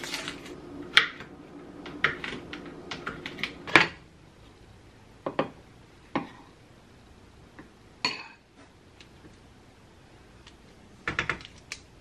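Kitchen clicks and clatter: a quick run of clicks over the first four seconds as dry roasted peanuts are scooped from a plastic jar and chopped on a cutting board, then a few separate clinks of a fork and spoon against a bowl.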